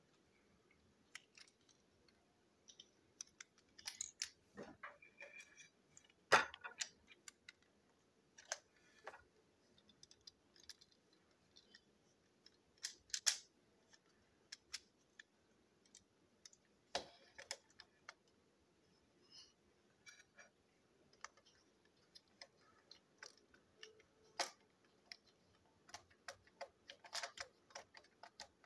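Light, irregular clicks and taps of a marker and small plastic toy train parts being handled on a tabletop, with a few short scratchy rustles.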